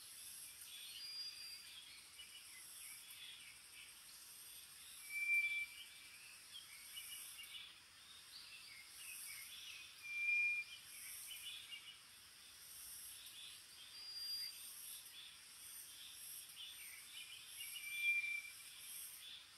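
Thin, steady one-note whistles, the song of the White's thrush: three louder lower-pitched whistles and two fainter higher ones, spaced several seconds apart. Constant small chirping runs underneath.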